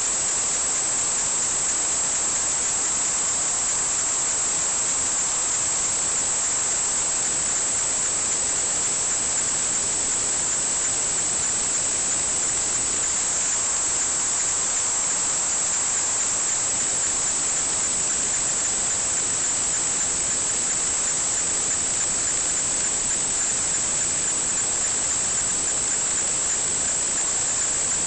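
Steady, unbroken hiss that stays the same throughout, strongest in a high band.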